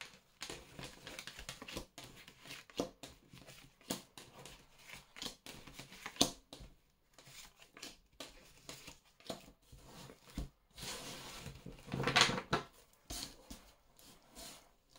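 Oracle cards being spread and dealt face down onto a wooden table: a run of light taps, slides and clicks, with a louder rustle of the deck about twelve seconds in.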